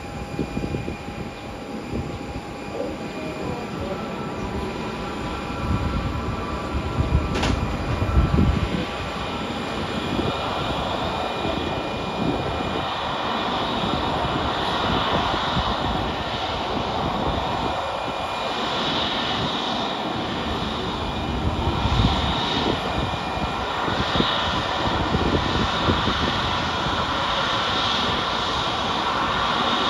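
Airbus A321neo jet engines running at taxi power, a steady whine over a rushing noise that grows gradually louder as the airliner taxis toward the listener. Gusts of wind rumble on the microphone, strongest about a quarter of the way in.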